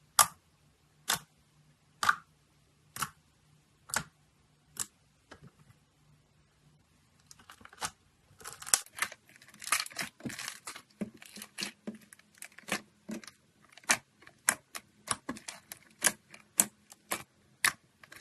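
Slime being pressed and poked, making sharp popping clicks. They come about once a second at first, then from about eight seconds in a fast, irregular run of pops and crackles.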